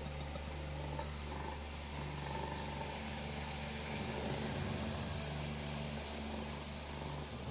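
Domestic cat purring steadily in slow on-off waves while nursing her newborn kittens, over a constant background hum.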